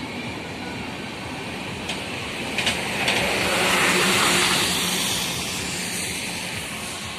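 A bus drives close past, its engine and tyre noise swelling to a peak about four seconds in and then fading, over the steady rumble of a passing train.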